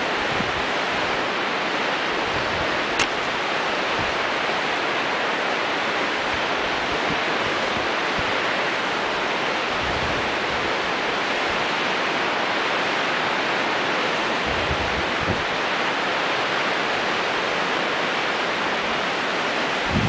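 Steady rushing noise of river whitewater mixed with wind on the microphone of a camera dangling on a line above the river, with a few low wind thumps and a single sharp click about three seconds in.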